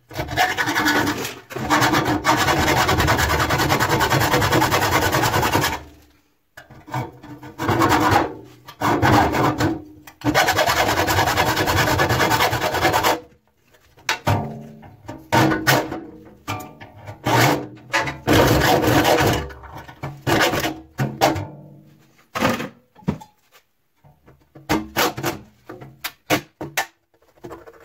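Hacksaw cutting into the sheet-steel edge of a clothes dryer door clamped in a vise, rasping back and forth. It goes in long unbroken runs in the first half, then in shorter, irregular strokes with pauses.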